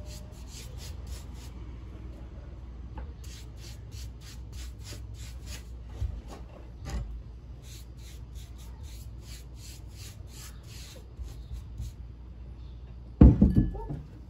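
Foam pad brush rubbing wet waterproofing finish over an oak plywood tabletop in quick back-and-forth strokes, about three a second. About thirteen seconds in, a short burst of loud knocks.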